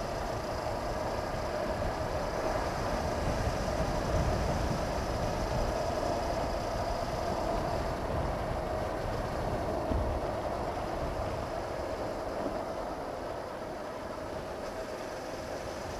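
Honda CB500X's parallel-twin engine running steadily at road speed, mixed with wind rushing over a helmet-mounted microphone.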